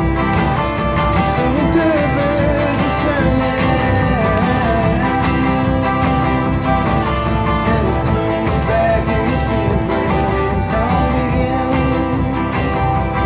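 Acoustic guitar strummed in a steady rhythm, with a voice singing a melody over it.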